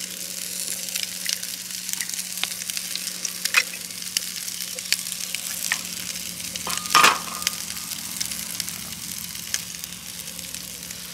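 Food sizzling and crackling in a frying pan on a portable camping gas stove, with stirring and small clicks of the utensil against the pan; one louder clink about seven seconds in.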